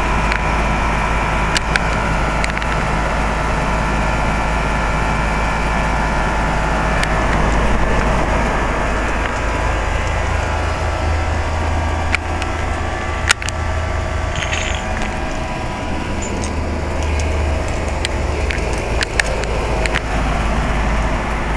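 2004 Carrier 3-ton heat pump's outdoor unit running steadily in cooling mode: the reciprocating compressor's hum and the condenser fan. A few sharp clicks stand out over it.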